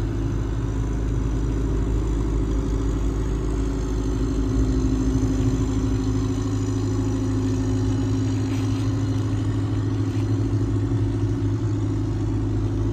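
A large engine drones steadily with a low hum, a little louder about five seconds in.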